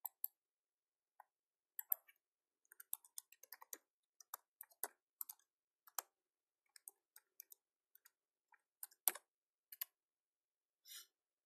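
Computer keyboard typing: quiet, irregular key taps as a short message is keyed in, with one sharper tap about nine seconds in.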